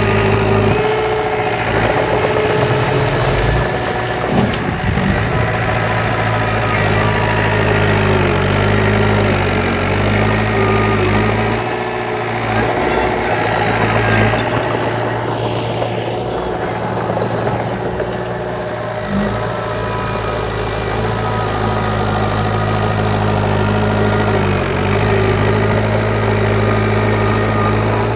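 Heavy diesel engine of earthmoving machinery running steadily, its pitch dipping and recovering briefly a couple of times.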